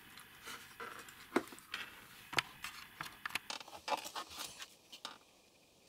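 Irregular small clicks, taps and scrapes of hands handling a plastic plug and wires on a wooden desk, stopping about five seconds in.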